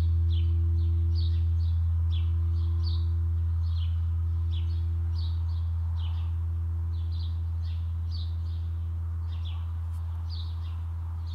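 Large tam-tam gong ringing on after a strike: a deep, steady hum that slowly dies away, with a fainter higher tone above it. Birds chirp over it, short falling chirps about twice a second.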